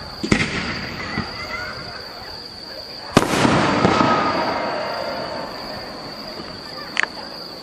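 Aerial firework shells bursting: a sharp bang about a third of a second in, the loudest bang about three seconds in followed by a swell of noise that fades over a couple of seconds, and a smaller bang near the end.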